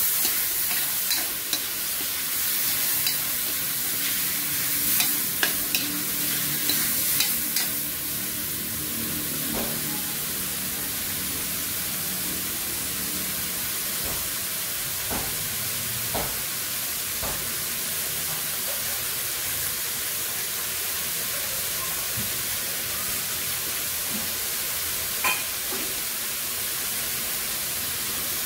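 Shredded cabbage and tomato sizzling in a metal wok over a gas flame, a steady hiss. A spatula scrapes and clicks against the wok during the first several seconds, and there is one more click near the end.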